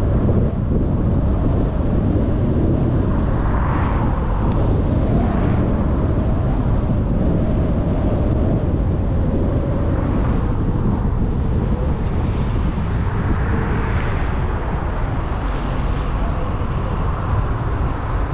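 Steady low rumble of a car driving on city streets: road and wind noise, with brief swells of passing traffic every few seconds.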